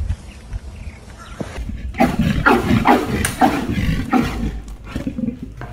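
A bear growling and roaring in a rapid run of loud, rough calls, starting about two seconds in and trailing off near the end.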